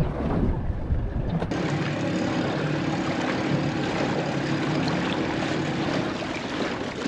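Small boat's motor running steadily at low speed while the boat reverses, a level hum over an even hiss. A low wind rumble on the microphone drops away suddenly about a second and a half in.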